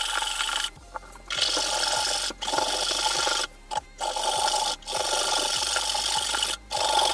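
Jeweller's saw blade rasping back and forth through a thick iron piece, in runs of quick strokes with several short pauses.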